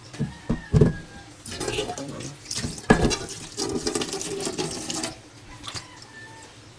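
Tap water running into a stainless steel dog bowl in a kitchen sink as it is rinsed, with knocks of the metal bowl in the first second and a loud one about three seconds in. The water stops about five seconds in.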